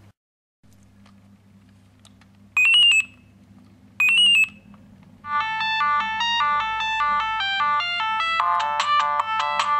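Siemens C60 mobile phone: two short electronic beeps, then about five seconds in a ringtone melody starts playing, with several notes often sounding at once. The melody gets louder near the end.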